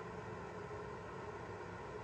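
Steady background hum and hiss, unchanging, with no ball strikes or other distinct sounds.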